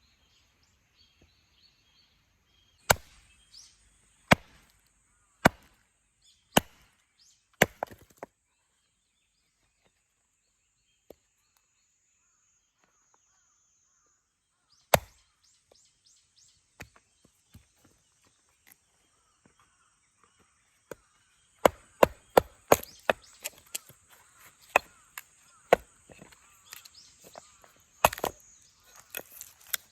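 Hand axe chopping firewood: a series of sharp strikes about a second apart, a pause with a single strike, then a quick run of many lighter knocks in the last third.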